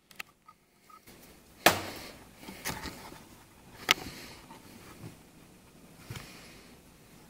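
Handling noise: a few sharp clicks and light knocks, the two loudest about two and four seconds in, with faint rustling between.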